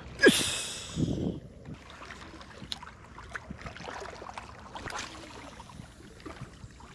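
Spinning rod being cast: a sharp swish with a quickly falling pitch as the rod whips through the air and line hisses off the reel, then a duller burst about a second in. Scattered small ticks follow over light wind and water noise.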